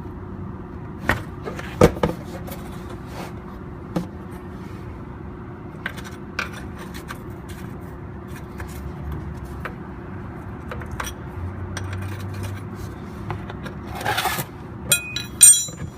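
Hand tools clicking and scraping against metal under a car while the oil drain plug is worked loose, over a steady low hum. Scattered sharp clicks, then a burst of louder metallic clinks with a brief ringing near the end.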